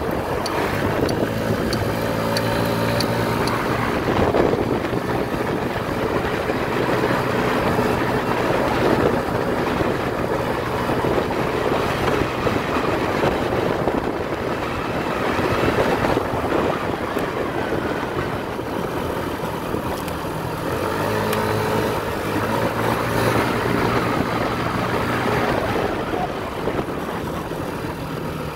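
Motorcycle engine running while riding along a street, with wind rushing over the microphone. A steady engine hum stands out near the start and again about three-quarters of the way through, and in between it is mostly masked by the wind.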